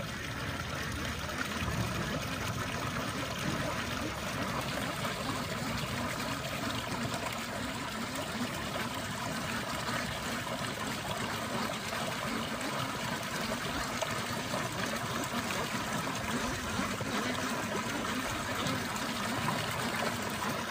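Water pouring from a fish pond's outlet pipe and splashing into a muddy pool below, a steady rushing flow. The outlet runs again after being cleared of a blockage.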